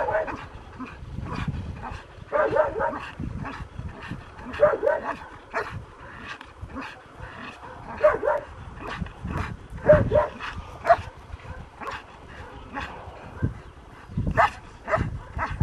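Dog barking again and again at a helper in a hiding blind, the hold-and-bark exercise of RCI protection work.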